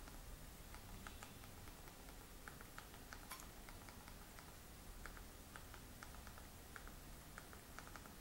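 A string of faint, irregular clicks from the buttons of a TV remote control being pressed to move the cursor around an on-screen keyboard.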